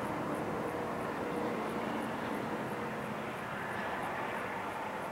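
Distant diesel-electric freight locomotives running under power as the train approaches, a steady engine drone with a few faint held tones.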